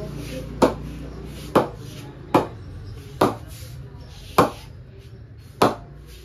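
A DSC cricket bat being ping-tested: six sharp wooden knocks on the willow blade, about a second apart, to judge the bat's ping.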